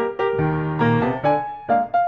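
Background piano music: a melody of quick separate notes, each struck and dying away, several a second.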